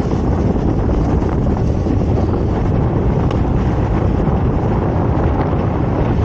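Wind buffeting the microphone with a steady low rumble while riding an electric unicycle over a grassy trail.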